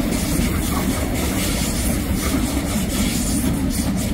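Alstom electric commuter train passing close by, its wheels rumbling and clacking over the track in a steady, loud run.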